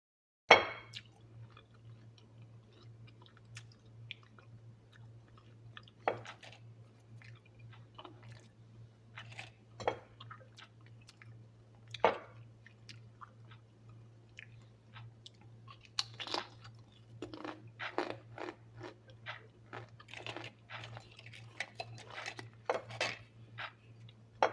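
Someone biting and chewing crunchy homemade fried potato chips close to the microphone: irregular crisp crunches, the loudest about half a second in and coming thicker in the second half, over a faint steady low hum.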